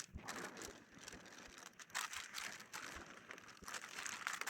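Faint rustling and crinkling of plastic food packets being handled, with scattered light crackles.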